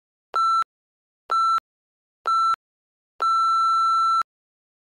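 Interval-timer countdown beeps marking the end of a work interval: three short beeps about a second apart, then one longer beep about a second long, all at the same pitch.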